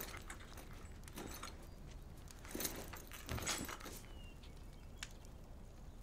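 Quiet room tone with a few faint rustles and soft knocks about two and a half and three and a half seconds in, like a man in scale armour shifting and leaning down.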